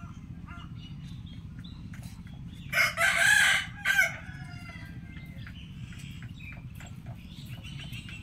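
Rooster crowing once, loud, starting about three seconds in and lasting about a second and a half, over a steady low background hum.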